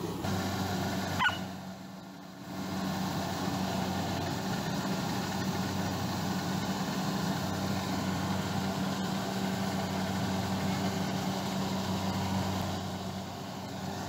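Kubota rice combine harvester running steadily, its engine and machinery making a constant hum. About a second in there is a brief high rising squeak, after which the sound drops for a moment and then returns.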